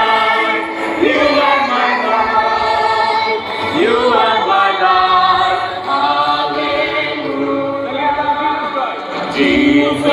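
Many voices singing together in a large crowd, held notes gliding from one pitch to the next with no pause.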